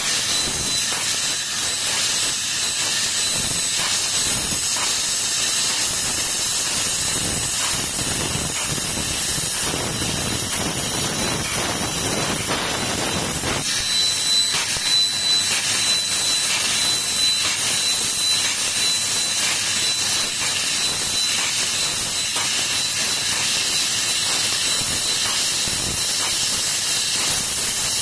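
3D CNC laser cutting machine at work: a steady hiss of gas jetting from the cutting head, with a thin high whine. About halfway through, the lower part of the noise drops away and the whine grows stronger.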